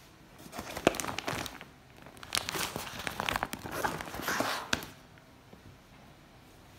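Kraft-paper padded mailing bag being handled, crinkling and rustling in two spells with sharp crackles, the second spell longer.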